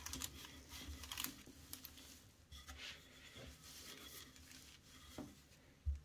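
Wooden rolling pin rolling out a sheet of puff pastry on baking paper: faint, irregular rustling and crinkling of the paper, with a couple of soft knocks near the end.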